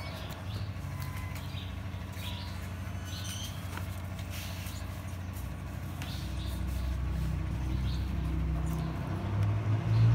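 A steady low motor hum that grows louder toward the end, with scattered short bird chirps over it.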